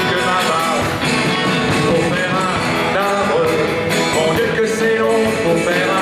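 Live band playing an upbeat French song on strummed acoustic guitar, bass guitar and drums, with a man singing into a handheld microphone.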